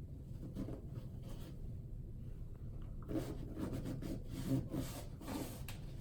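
Cloth rustling and rubbing as a newborn baby stirs in its bedding: a few faint strokes early, then a denser run of short scratchy rustles from about halfway through.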